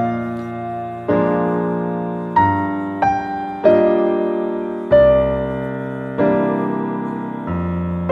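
Background music: a slow, gentle piano piece, with chords struck about once a second and left to fade.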